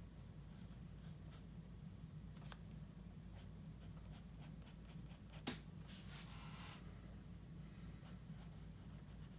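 Faint scratching of drawing strokes on paper: short scattered strokes and light ticks, a sharper tick about five and a half seconds in, then a longer run of scratchy shading strokes just after.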